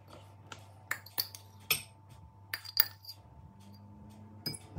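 A utensil tapping and scraping inside a ceramic mug as a mug cake is worked loose and tipped out into a bowl: a scatter of light, sharp clinks and knocks, about eight in all.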